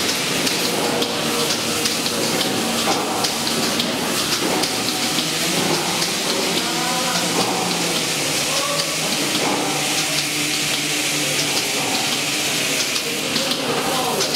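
Holstein-Friesian heifers mooing in a milking parlour, the calls coming mostly through the middle stretch, over the steady hiss of the milking machines.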